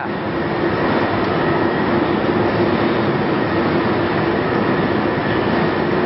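A row of diesel burners firing on a carbonization furnace: a loud, steady roar with a constant hum.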